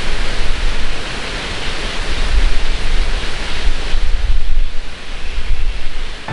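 Wind buffeting the microphone: a loud, gusty rumble and hiss that swells and dips.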